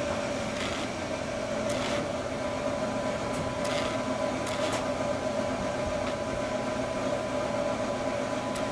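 Steady humming drone of background room noise, like a fan or air-conditioning unit, with a held mid-pitched tone, plus a few faint brief hisses.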